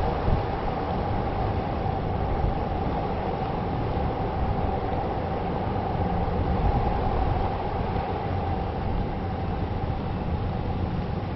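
Steady rumble of vehicles on a city street, with a steady high hum running through it.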